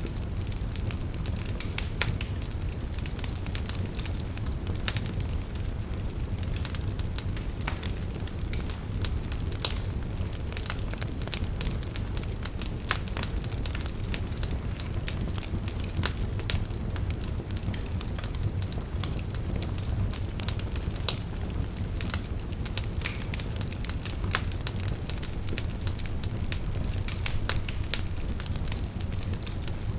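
Bonfire (campfire) burning steadily, with a low rumble of the flames and frequent irregular sharp crackles and pops of the burning wood.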